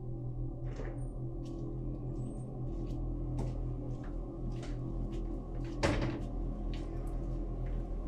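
Footsteps of two people walking on a hard hallway floor over a low, steady drone, with one louder knock about six seconds in.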